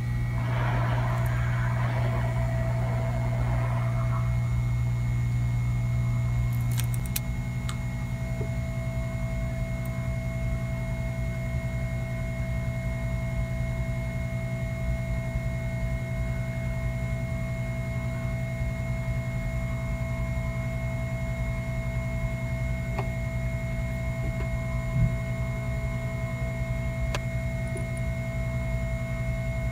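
Hot air rework station blowing steadily onto a circuit board to desolder a chip: a constant fan hum with a rush of air. It gets slightly quieter about seven seconds in.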